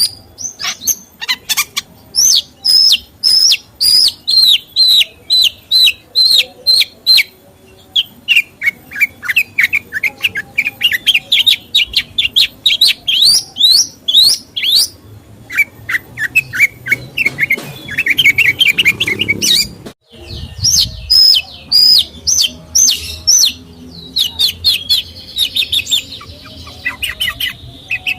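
A songbird singing long runs of sharp, rapidly repeated chirps, in series that step down and then climb in pitch, with a brief break about twenty seconds in.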